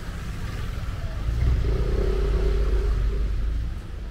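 A motor vehicle passing close by, its engine rumble swelling about a second in and fading near the end, over a steady hiss of rain.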